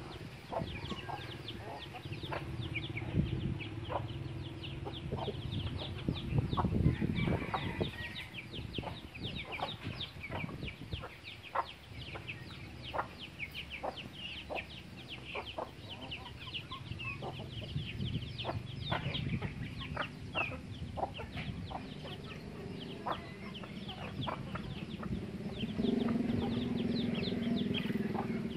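A flock of free-range chickens: chicks peeping all through with short, high, falling chirps, and hens clucking. A low drone comes in near the end.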